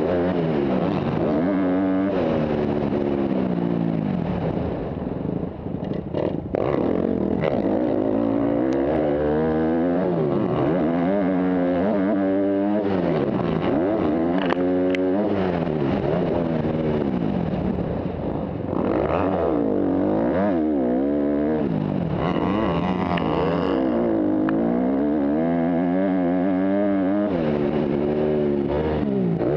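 Motocross dirt bike engine ridden hard, revving up and falling back again and again as the throttle is opened and closed through the gears, heard from a helmet-mounted camera. The throttle is shut briefly about five seconds in and again near twenty seconds, with a few knocks about six seconds in.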